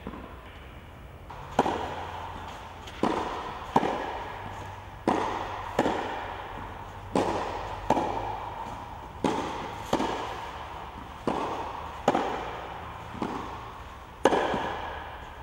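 Tennis rally: a racket strikes the ball again and again with sharp pops, the impacts coming in close pairs about every two seconds. Each pop rings on briefly in an echo.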